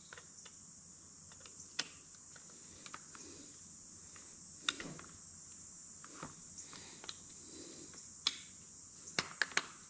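Faint, sparse metallic clicks and ticks from a small screwdriver turning the screws that join the two halves of a Briggs & Stratton Flo-Jet carburetor. The screws are being snugged a little tighter to seal the bowl gasket. Single clicks come a few seconds apart, with a quick run of clicks near the end.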